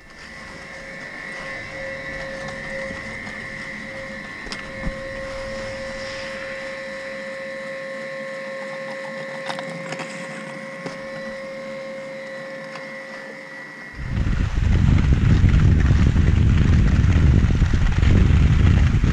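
Riding a button surface lift up a ski slope: a steady whine with a few sharp clicks from the tow. About 14 s in this gives way to loud wind buffeting the microphone as the skier heads downhill on groomed snow.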